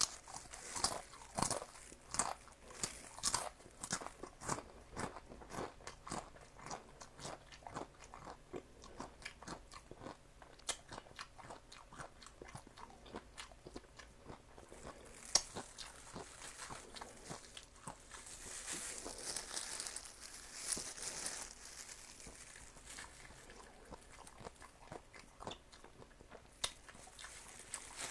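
Close-miked crunchy chewing: a long run of sharp crunches from biting and chewing crisp food, densest in the first several seconds, with a softer hissing stretch about two-thirds of the way through.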